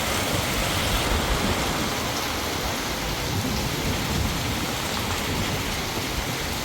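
Heavy monsoon rain pouring down steadily, a dense, even hiss.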